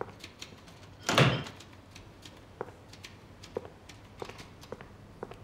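A wooden door shutting with one heavy thud about a second in, over faint scattered clicks.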